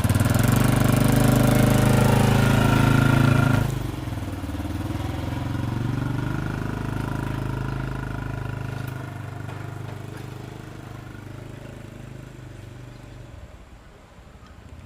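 Motorcycle engine running loud and close, then pulling away about four seconds in and growing steadily fainter.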